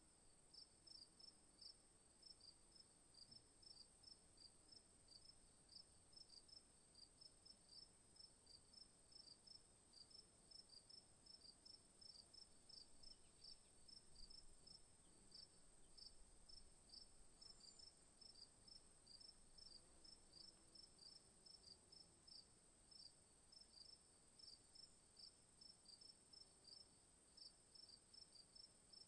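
Crickets chirping faintly in a regular rhythm, about three high chirps a second, over a steady, even higher-pitched tone.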